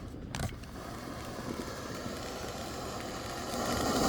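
A firework hissing and crackling, growing louder near the end, after a single click about half a second in.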